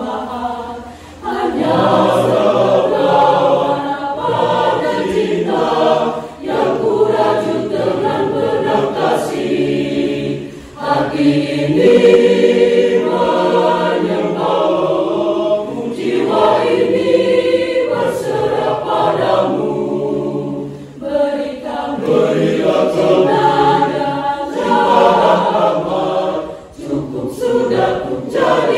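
Mixed-voice church youth choir singing a hymn in harmony, in sustained phrases with short breaks between them.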